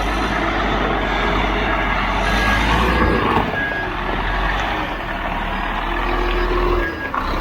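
Concrete mixer truck backing up with its reverse alarm beeping at intervals over the steady low rumble of its diesel engine.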